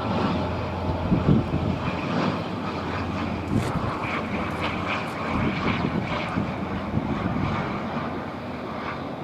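Airliner engines running: a steady, loud rushing noise with a faint high whine.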